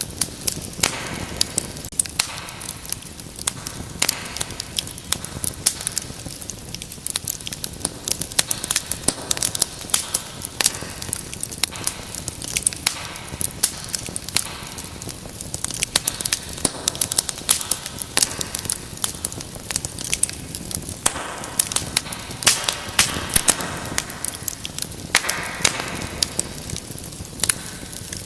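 Wood fire burning in a fireplace: a steady low rush of flame with frequent, irregular sharp crackles and pops.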